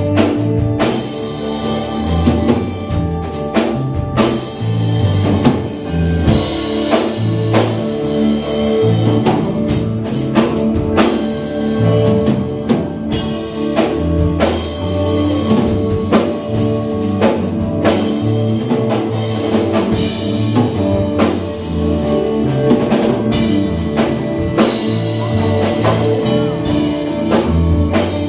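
Live rock band playing amplified: drum kit keeping a steady beat under electric guitars and keyboard, with low notes held underneath.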